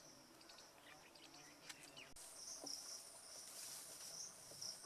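Faint insect chirring: a high, pulsing trill with a thinner steady whine above it starts abruptly about two seconds in, after a few faint ticks.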